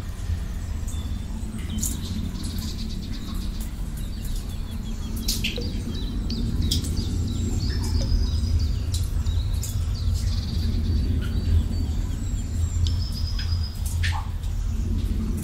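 Nature ambience of small birds chirping, with short repeated high calls and scattered sharp clicks, over a steady low rumble.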